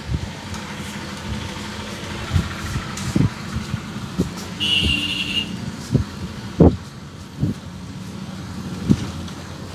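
Irregular dull thumps of hands tapping and patting the head during a head massage, over steady traffic noise. A brief high tone sounds about five seconds in.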